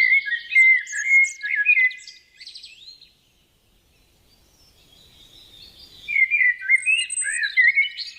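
A songbird singing varied, warbling phrases: a burst of song for about three seconds, a pause of near quiet, then another phrase starting about six seconds in.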